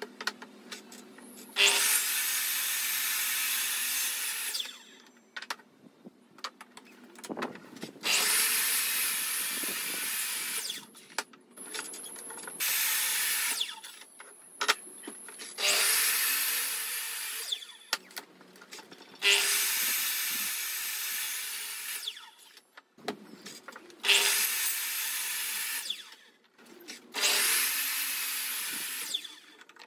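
Electric mitre saw cutting pine battens: repeated cuts, each two to three seconds of motor and blade noise, starting with a sharp spike as the motor spins up. About seven cuts in all, with quieter pauses of knocks and handling as the timber is moved along the saw.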